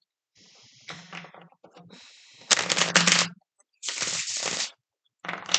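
Tarot cards being shuffled and handled, in several noisy bursts; the loudest, about halfway through, is a quick run of flicks.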